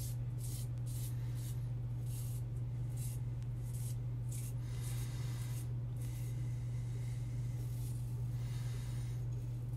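Safety razor scraping through lathered stubble on the neck in repeated short strokes, each a brief scratchy rasp. A steady low hum runs underneath throughout.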